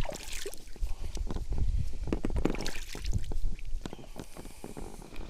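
Water splashing and sloshing against a small boat, with irregular knocks and rustling, louder in the middle and dying down near the end.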